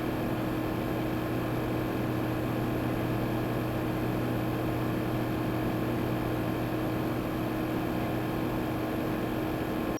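Computer running: a steady whir of cooling-fan noise with a constant low electrical hum, cutting off abruptly at the end.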